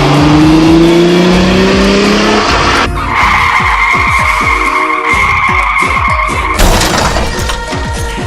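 Car engine revving, rising steadily in pitch for about two and a half seconds. Then tyres screech in a steady squeal for about three and a half seconds as the car drifts, cut off by a sudden loud hit.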